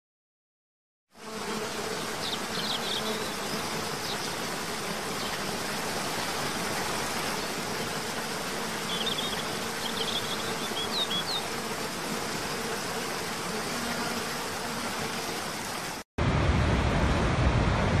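About a second of silence, then the steady rush of water falling over a rocky forest cascade, with a few short, high bird chirps in two spells. Near the end it cuts off suddenly and gives way to the louder, deeper roar of Niagara's Horseshoe Falls going over the brink.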